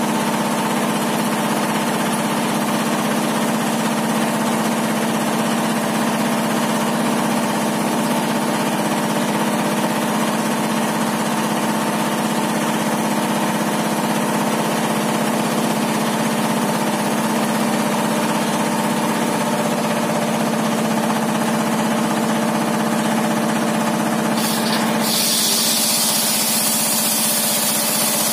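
Homemade sawmill circular table saw running steadily at speed, a constant machine hum. Near the end a harsher, hissing noise joins in.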